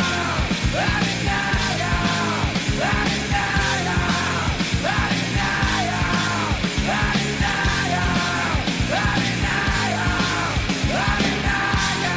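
Hard rock music with a steady, fast drum beat and a voice in repeated phrases that fall in pitch.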